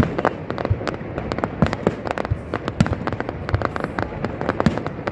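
Fireworks display: shells bursting in quick, irregular succession, several sharp bangs a second with crackling between them.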